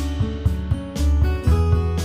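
Background music: an acoustic guitar-led track with a steady bass line.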